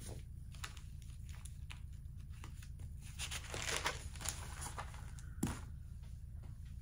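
Faint handling noise: rustling and crinkling with scattered light clicks, busiest around the middle, and one sharper knock a little past five seconds in, over a steady low hum.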